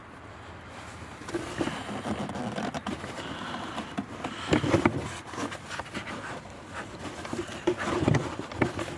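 Scraping, rustling and short knocks of a gloved hand working inside the open cutting chamber of a Sterwins 2500 W electric garden shredder, trying to turn a cutting disc that will not rotate because a twig is jammed in it.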